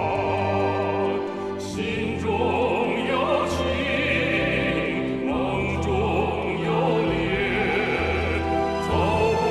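Television drama's theme song: a singer's voice with vibrato over orchestral accompaniment.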